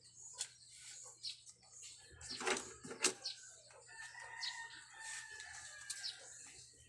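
Paper and plastic crinkling and handling clicks, loudest about halfway through. Over them a rooster crows once in the background, a drawn-out call of about two seconds.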